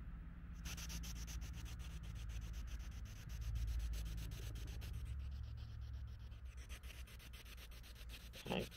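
Spirit box sweeping through radio stations: faint, rapid clicking static that starts about half a second in, over a low rumble that swells near the middle.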